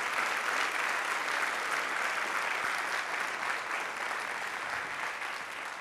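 Audience applauding after a talk, slowly fading near the end.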